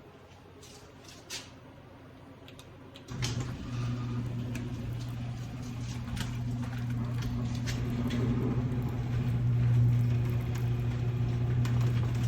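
Chain-drive garage door opener switching on about three seconds in and running steadily: a low motor hum with light clicks and rattles as the wooden door travels up its track on new, freshly lubricated wheels.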